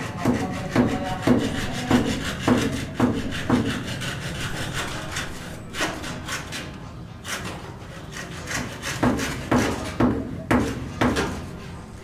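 Hand saw cutting through wood in even back-and-forth strokes, about two a second. It pauses for several seconds in the middle, then saws again near the end.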